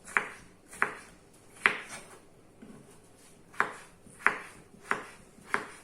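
Kitchen knife chopping on a cutting board, dicing potato into small cubes: about eight sharp knocks at uneven intervals, with a pause of about a second and a half in the middle.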